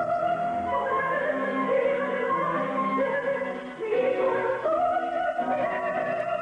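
Zarzuela music: an operatic voice holding long notes over an orchestra, with a short break a little past the middle.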